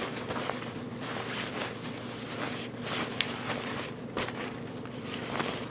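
Ripstop nylon fabric of a stuffed-in daypack rustling and crinkling as a hand squeezes and compresses it: a run of short, irregular scratchy rustles. A steady low hum runs underneath.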